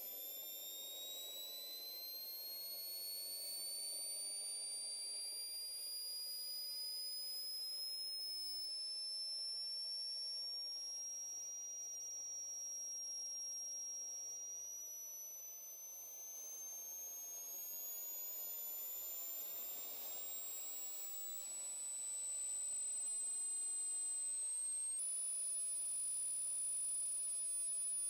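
Acex80 model turbine jet engine running on its first bench test, its whine rising slowly and steadily in pitch as it spools up, then shifting abruptly to a steady, higher tone near the end.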